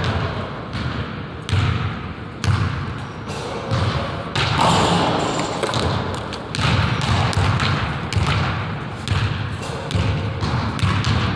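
Basketball dribbling and bouncing on a hardwood gym floor, irregular thuds mixed with players' footsteps and shoe scuffs on the wood.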